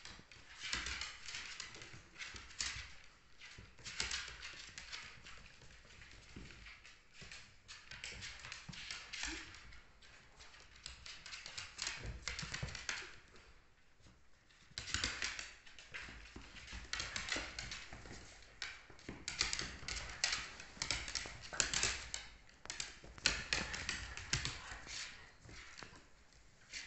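Dogs' claws clicking and scrabbling irregularly on a hardwood floor as an adult dog and a small cavoodle puppy move about, in clusters with a short lull midway.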